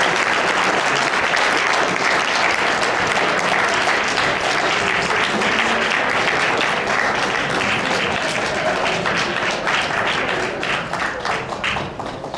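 Audience applauding, a dense steady clapping that thins into scattered individual claps over the last few seconds and then stops.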